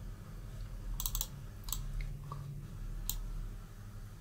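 Faint clicks at a computer while the narrator works in the program, over a low background hum. There is a quick cluster of clicks about a second in, then single clicks at roughly one-second spacing.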